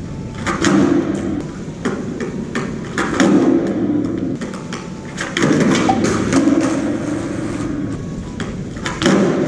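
Skateboard practising shove-its on concrete: the deck and wheels clack and thud onto the ground in several separate attempts, each hit ringing on in a strong echo.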